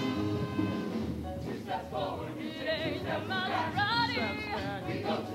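Show choir performance: a held chord for about the first second, then singing with a wavering, ornamented melody over the accompaniment.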